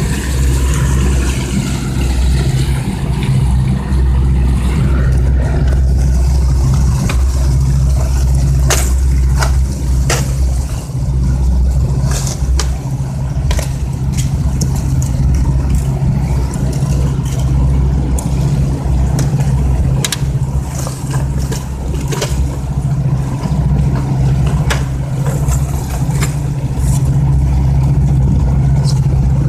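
Boat engine running steadily with a deep, even drone, with scattered sharp clicks over it.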